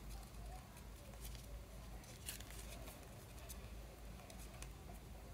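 Faint rustling and light ticking of paper and tape as fingers handle a small tape-covered paper cutout.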